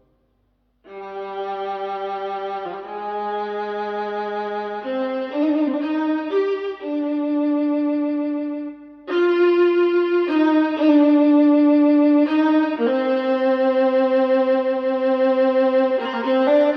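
Violin music played back through Wharfedale Diamond 9.0 speakers driven by a NobSound NS-15G amplifier: slow, sustained bowed notes that begin about a second in after a moment of silence, with a brief dip about halfway through.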